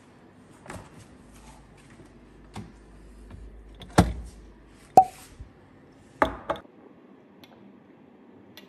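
Refrigerator door opened and a glass jar lifted from the fridge shelf: scattered knocks and clicks, the loudest a short glass clink about five seconds in, with a faint low hum through the middle.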